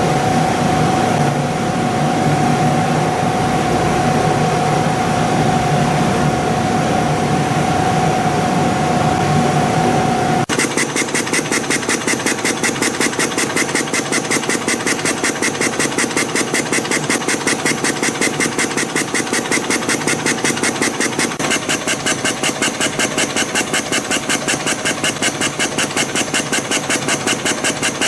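CNC spring coiling machine running as it coils compression springs from fine wire. It starts as a steady whine and at about ten seconds changes abruptly to a rapid even rhythm of about four machine cycles a second.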